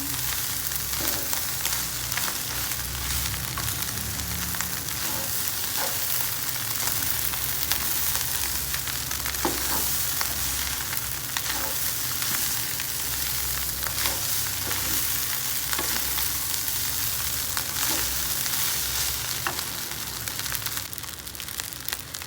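Fried rice sizzling steadily in a hot pan, with scattered short clicks and scrapes of a utensil stirring it.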